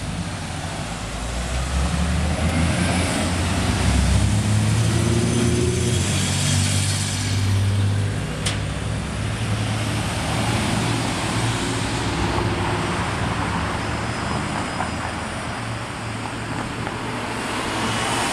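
Road traffic passing through an intersection: car engines and tyre noise, with a heavier vehicle's low engine rumble building from about two seconds in and easing off about eight seconds in. A single sharp click sounds near the middle.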